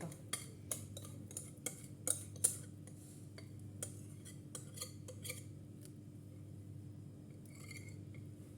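A kitchen utensil scraping and clinking against a mixing bowl as thin cake batter is poured out into a cake tin: a run of quick clinks and scrapes for about five seconds, then only a low steady hum.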